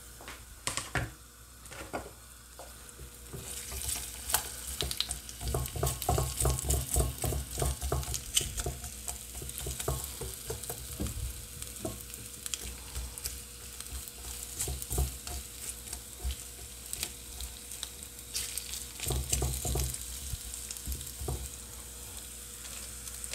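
Raw potato slices sizzling in hot oil in a cast-iron frying pan. A spatula scrapes and knocks against the pan in quick clicks as the slices are spread out, busiest from about four to twelve seconds in and again briefly near the end.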